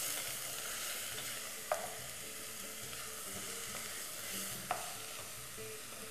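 Food sizzling in a pot as a wooden spoon stirs it, with two sharp knocks about three seconds apart.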